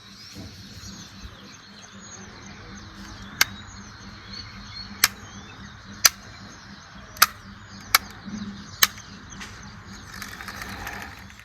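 Small birds chirping over a low outdoor background, with six sharp clicks at uneven intervals through the middle of it.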